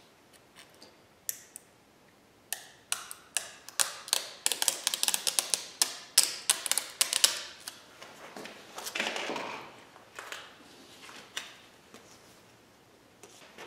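Quick run of small clicks and crackles from a Brembo decal and its paper backing being handled and pressed onto a painted brake caliper, densest in the middle, then a short rubbing sound as it is smoothed down.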